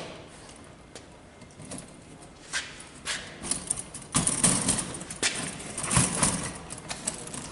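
Fold-out metal clothesline rack being pulled open from a caravan wall: a series of clicks, rattles and knocks of its metal bars and hinges, sparse at first and busier and louder about halfway through.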